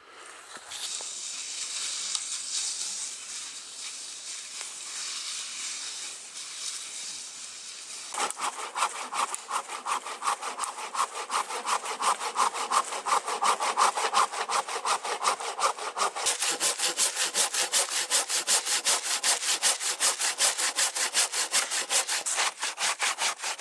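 Hand saw cutting through a fallen, mossy log with quick back-and-forth strokes. The rasp of each stroke turns distinct and regular about eight seconds in.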